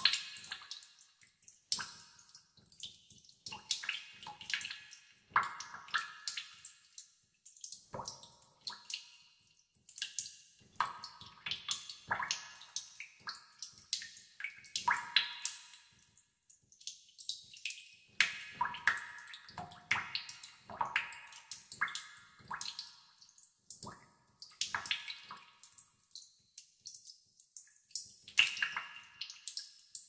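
Water drops falling irregularly into standing water, a few a second, each plink at a different pitch with a short echoing tail, as in a cave.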